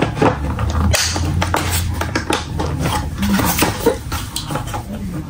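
Repeated short plastic clicks and knocks from a Hurtle three-wheel toddler kick scooter being handled during assembly, its handlebar stem pushed down into the front base, over a steady low hum.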